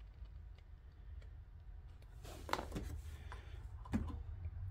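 Faint handling clicks and rustles from a small plastic wiring connector and a tube of dielectric grease, with a couple of sharper clicks in the second half, over a low steady hum.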